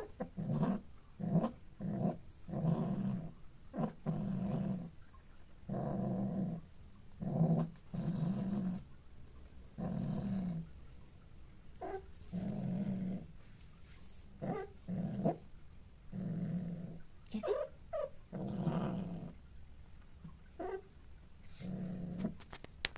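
Cats growling and yowling while mating, in low drawn-out calls. More than a dozen separate calls come every second or two; some are short and some last about a second.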